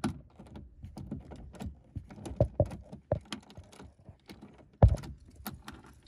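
Ratchet clicking and metal clunks as seatbelt anchor bolts are tightened, with a sharp knock near the end.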